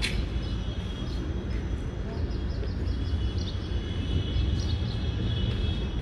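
Outdoor background noise: a steady low rumble with faint, short high-pitched chirps.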